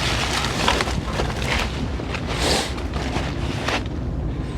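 Footsteps rustling through brush in an irregular walking rhythm, with wind rumbling on the microphone underneath.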